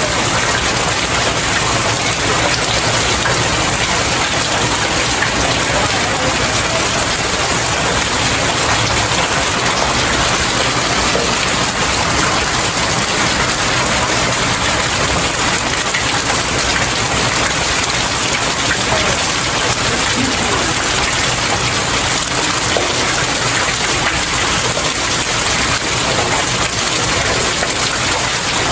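Steady rain falling on stairs, a continuous even patter and splash of drops.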